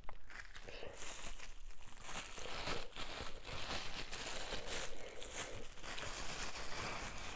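Plastic film wrap crinkling and rustling in continuous crackles as it is handled and peeled off balls of fufu.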